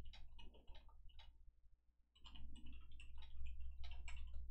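Computer keyboard keys clicking in quick irregular runs of typing, with a short pause near the middle, over a steady low hum.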